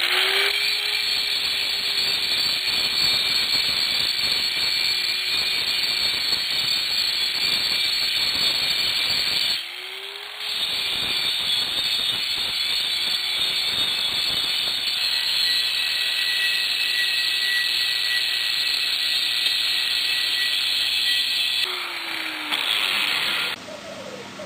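Angle grinder running hard against the steel end of an empty propane tank, a steady high grinding noise. The motor spins up at the start, is let off and restarted about ten seconds in, winds down near the end with a brief burst, then stops.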